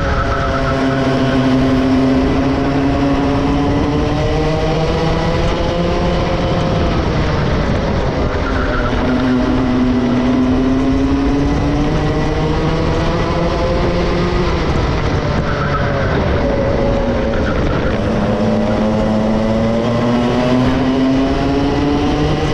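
Two-stroke racing kart engine running under load, its pitch climbing steadily along the straights and dropping twice as it slows for corners before winding up again.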